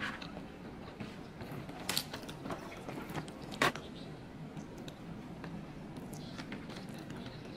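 Scattered clicks and knocks of objects being handled, two sharper knocks standing out about two seconds in and again about three and a half seconds in.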